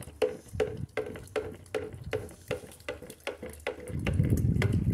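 A stick stirring a liquid lye-soap mixture in a plastic pitcher, knocking against the pitcher wall two or three times a second. A low rumble comes in near the end.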